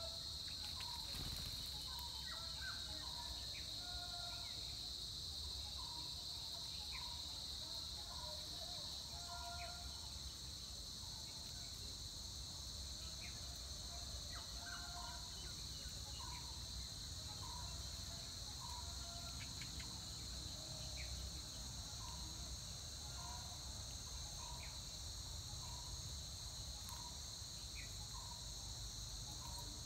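Steady chorus of insects, an unbroken high-pitched buzz, with faint short chirps repeating every second or so beneath it.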